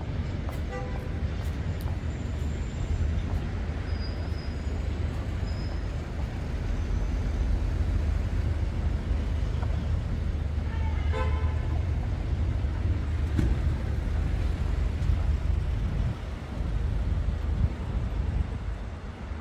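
Street traffic noise with a steady low rumble of engines, and a short toot about eleven seconds in.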